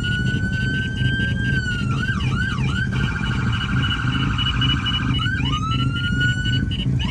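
Electronic emergency-vehicle siren cycling through its modes: a slow wail, then quick yelps, then a rapid warble in the middle, then yelps and a rising wail again. A steady pulsing beep-like tone and a low rumble sit underneath.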